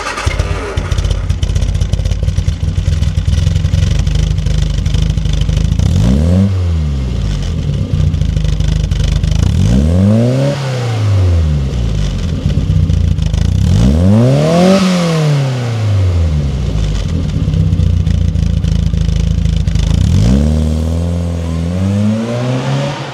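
1969 Morris Mini Cooper Mk2's 998cc four-cylinder engine with a modified camshaft, heard at the exhaust: idling steadily, then revved three times, each time rising in pitch and falling back to idle. Near the end the car pulls away, its note climbing.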